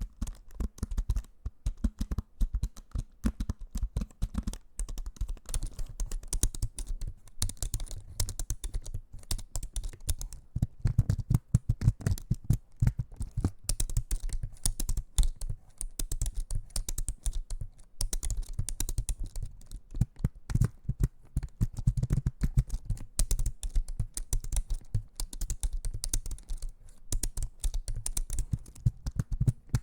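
ASMR trigger sounds: a dense, continuous run of rapid clicks and taps close to the microphone, several a second.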